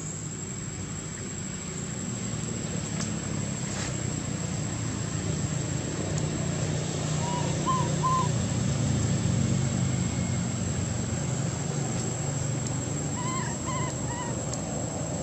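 Steady outdoor background hum with a thin, high, steady whine. Twice, about halfway through and again near the end, a run of three short, high animal calls.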